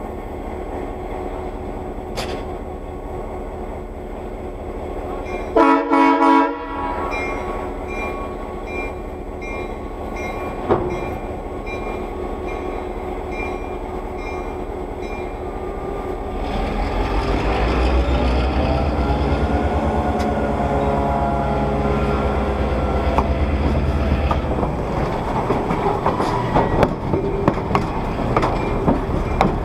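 EMD GP-9 diesel locomotive's 16-cylinder two-stroke engine idling, with two short horn blasts about six seconds in. From about sixteen seconds in the engine revs up under throttle as the train pulls away, and near the end the wheels click over the rail joints.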